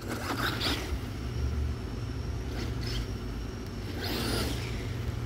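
Traxxas Maxx V2 RC monster truck's brushless electric motor and tyres churning through grass in a few short bursts as the truck spins out, over a steady low hum.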